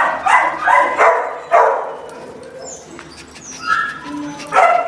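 A dog barking in a rapid run of barks, with a few higher yips a little before the end and another loud bark right at the end.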